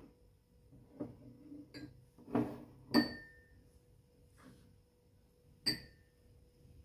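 Ceramic bowls being moved and set down on a wooden tabletop: a handful of sharp knocks and clinks, the loudest two about two and three seconds in and another near the end, some with a brief bright ring.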